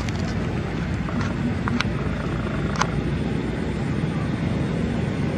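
A steady low engine drone, with a few short high ticks over it, the clearest about two and three seconds in.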